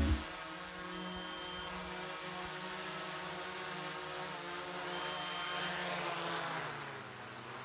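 Small quadcopter drone's propellers whining steadily as it hovers low and settles onto the ground. The pitch wavers about halfway through, and the whine fades near the end as the motors wind down.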